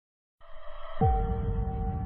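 Music starts out of silence, first a soft swell. About a second in comes a deep hit with a falling boom, then held gong-like tones over a low rumble.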